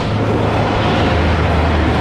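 Loud, steady rumble of a vehicle passing close by, with a deep hum underneath.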